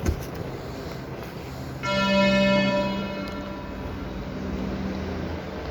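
Beep-test signal: a single electronic chime sounds about two seconds in and rings down over the next three seconds or so. It marks the end of a timed shuttle, when the runner must reach the line.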